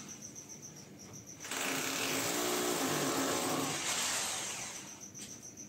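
Hammer drill boring into a plastered masonry wall: after a pause it runs again about a second and a half in for roughly two and a half seconds, then winds down. A cricket chirps rapidly and evenly in the background.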